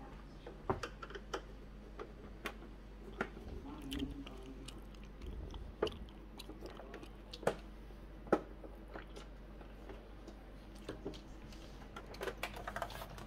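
A screwdriver backing screws out of a Commodore Amiga 500 Plus's plastic bottom case: scattered small clicks and ticks. A quick cluster of clicks and knocks comes near the end as the case is handled.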